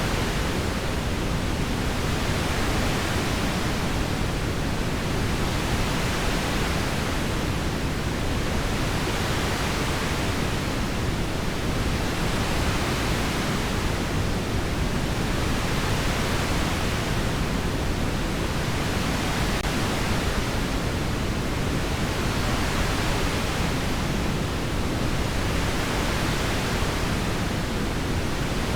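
Heavy rain falling steadily, a dense even hiss that swells and eases gently every few seconds.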